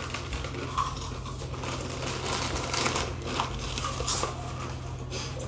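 Foil potato-chip packets (Lay's) crinkling and rustling in quick irregular bursts as hands dig chips out, mixed with chips being crunched, over a steady low hum.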